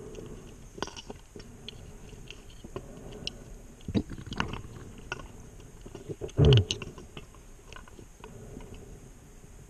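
Scuba diver breathing through a regulator underwater: one loud low burst of bubbles about six and a half seconds in, with scattered clicks and small bubble pops around it over a faint steady hiss.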